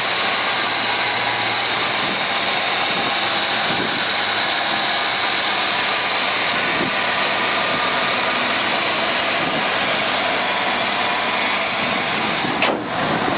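Ford Lightning's 351 (5.8-litre) V8 idling steadily with the hood open, a constant hiss and whir over a low hum.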